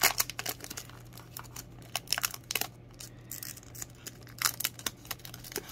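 Clear cellophane overwrap on a perfume box crinkling and crackling as fingers pick at it and try to peel it off. The crackles come in short spells: one right at the start, another around two seconds in, and a third about four and a half seconds in. A faint steady low hum runs underneath.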